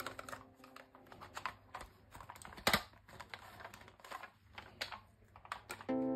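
Hard plastic toy being handled: a Spider-Man figure and its plastic skateboard knocked and pressed together, a run of light clicks and taps with one sharper snap a little before the middle.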